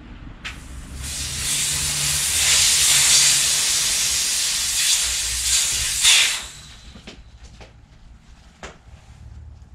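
Air hissing steadily out of a bicycle inner tube as the tyre is let down, for about five seconds before it stops abruptly. Afterwards a few light clicks and knocks of hand work on the wheel.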